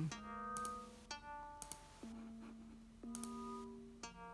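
Sonic Pi synth notes played through laptop speakers: a new pitched, plucked-sounding note about once a second, each fading out, the pitches chosen at random by position values sent from Blender over OSC. Faint high clicks sound between the notes.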